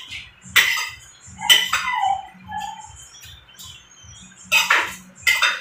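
Eating sounds: a spoon and fork clicking and scraping against a ceramic plate, with mouth sounds from chewing, as sharp clicks a second or more apart. A short wavering chirp-like squeak comes about two seconds in.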